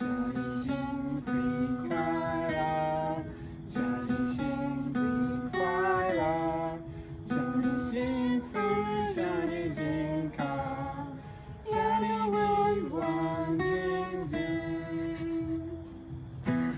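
Acoustic guitar strummed in chords while people sing a song along with it.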